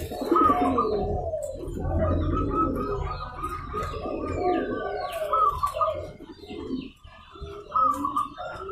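Zebra doves (perkutut) cooing, their calls repeating and overlapping, with a short lull about two-thirds of the way through.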